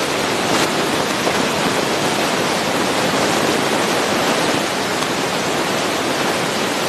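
Steady, even rushing noise spread across low and high pitches, with no distinct events in it.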